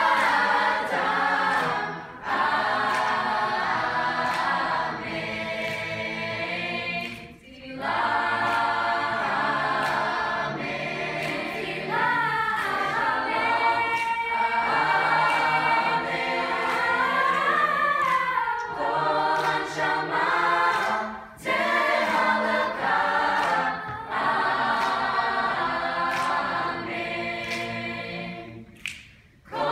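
Teenage mixed choir singing a cappella, breaking off briefly between phrases a few times.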